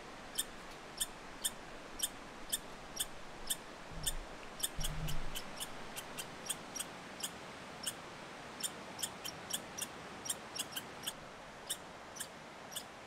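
Red squirrel calling: a long series of short, high-pitched chirps, about two to three a second and unevenly spaced, over a steady background hiss.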